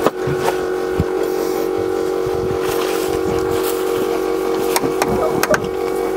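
Steady electrical whine from the old bucket truck with its key switched on, holding an even pitch, with a few sharp switch clicks on the dash around a second in and again near five seconds.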